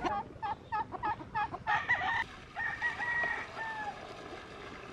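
Chickens clucking in a quick run of about seven short notes, then a rooster crowing for about two seconds, the call dropping in pitch at its end.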